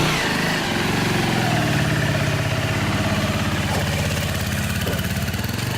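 Small motorcycle engine idling steadily just after being started.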